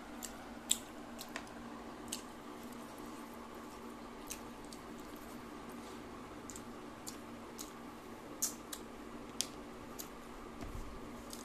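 Close-miked eating sounds: scattered sharp, wet clicks and squishes from fingers mixing rice with mutton curry and from chewing, over a steady low hum.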